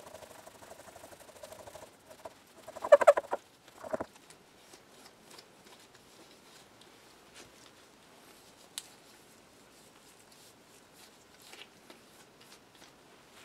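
Cloth rubbing hard on a radio control knob while polishing it, giving a short burst of squeaks about three seconds in and another a second later, then faint rustling and light clicks.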